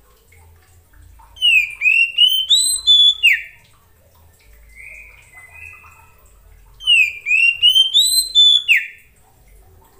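Oriental magpie-robin singing: two loud phrases of quick, clear whistled notes that sweep up and down, the second about five seconds after the first, with a softer drawn-out whistle between them.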